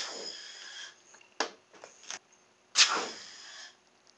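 Air rushing through the narrow plastic tube of a balloon-powered boat's green balloon, in two hissing bursts of about a second each, about three seconds apart, each with a faint whistling tone; a couple of small knocks come between them.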